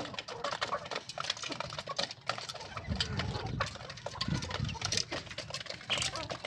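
Rhode Island Red hens and chicks pecking and scratching, making many quick light taps, with a few faint chick peeps.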